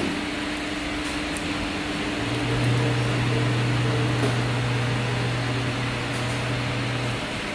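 High-frequency TPU embossing machine holding its press down on a label: a steady machine hum over a fan-like hiss, with a deeper, louder buzz that starts about two seconds in and stops about five seconds later, the high-frequency heating cycle.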